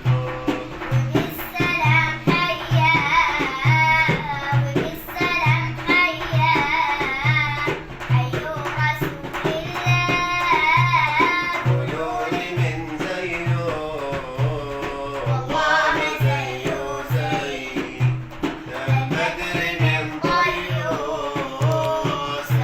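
A girl singing an Arabic nasheed in a winding, ornamented melody over a steady low drum beat.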